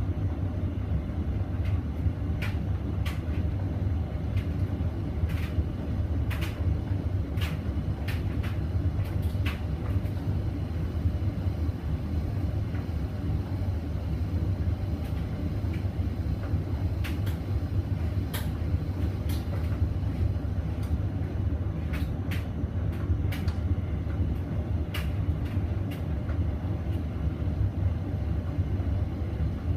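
Hoover Vision Dynamic washing machine spinning a load of bedding: a steady low hum with scattered short clicks and knocks.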